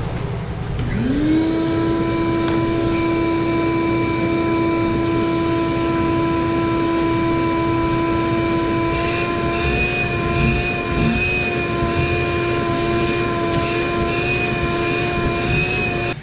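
Vacuum cleaner motor spinning up about a second in, then running with a steady whine while it sucks the buffing debris out of the inside of a semi-truck tire; its pitch wavers slightly in the second half.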